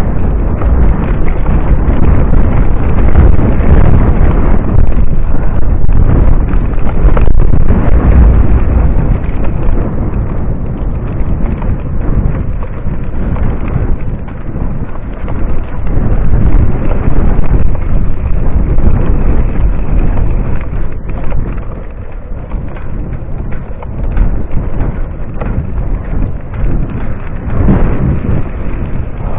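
Wind buffeting a camera microphone on a mountain bike riding a dry dirt singletrack, with knobby tyres rumbling over the ground and a few knocks as the bike hits bumps. The rumble is loud and uneven, easing somewhat in the second half.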